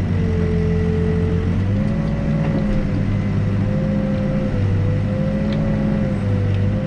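Backhoe's diesel engine running steadily, its low drone swelling and easing every second or so, with a steady whine above it that drifts slightly up and down in pitch.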